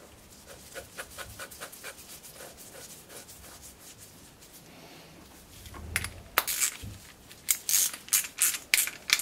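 Gloved fingers turning the drain bolt back into the float bowl of a Mountfield RV150 mower carburettor and handling the carburettor: faint small ticks at first, then from about two-thirds of the way in, a quick series of short rubbing scrapes.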